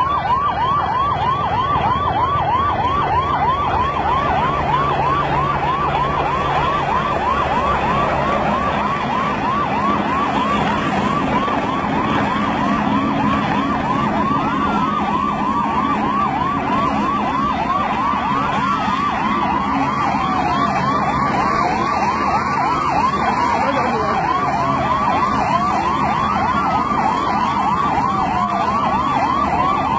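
Emergency vehicle siren on a fast yelp, its pitch sweeping up and down about three times a second. From about halfway through, a second siren joins it with slower falling sweeps. A low steady drone runs underneath.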